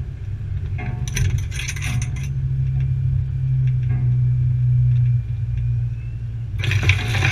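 Off-road vehicle's engine running with a steady low drone, with rattling clatters from about one to two seconds in. Near the end a loud, wide rushing noise sets in over it.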